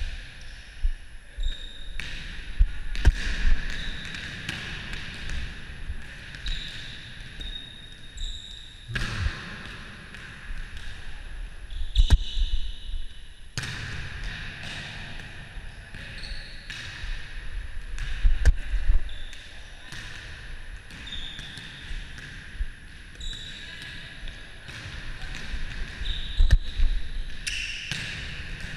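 Volleyball play in a gym: a series of sharp hits of hands on the volleyball, plus the ball striking the floor, each echoing in the hall. Short high squeaks of shoes on the sports floor come between the hits.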